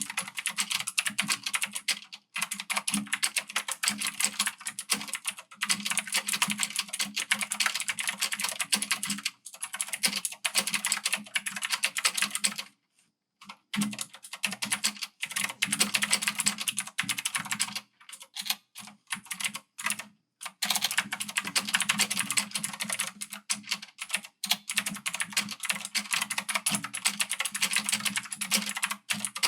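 Typing test on an Ajazz AK50 full-size mechanical keyboard with clicky blue switches and PBT keycaps: a fast, dense run of loud, high-pitched key clicks, with brief pauses about 13 and 20 seconds in.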